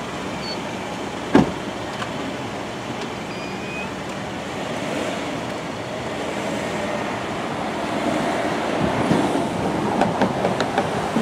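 Steady street traffic noise as a black Rolls-Royce Wraith pulls away from the kerb and drives off. One sharp knock about a second and a half in. The noise grows louder, with a few sharp clicks, in the last few seconds.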